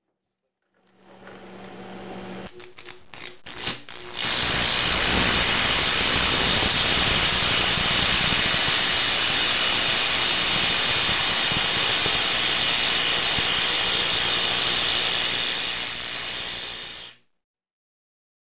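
Carbon arc torch with quarter-inch carbon gouging rods, powered by a stick welder at about 100 amps AC. A low hum starts about a second in, and the arc sputters and crackles as it is struck. It then burns with a loud, steady crackling hiss for about thirteen seconds before cutting off suddenly.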